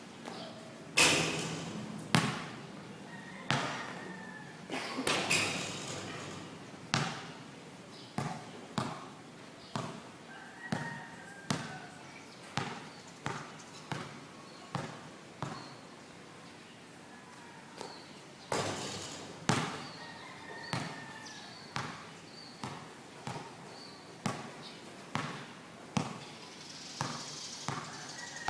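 A basketball bouncing on a court, with irregular bounces about once a second and a few louder ones. Players' voices can be heard faintly underneath.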